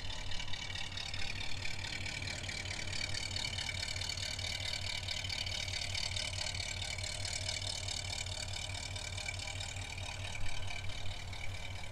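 1959 Studebaker Silver Hawk's engine idling smoothly, a steady, even exhaust note heard from near the tailpipe.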